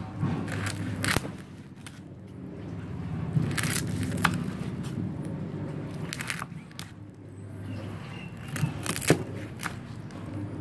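Knife cutting through crispy fried pork belly on a wooden board, the puffed crackling skin giving short, sharp crunches in pairs and small clusters with each cut, over a steady low hum.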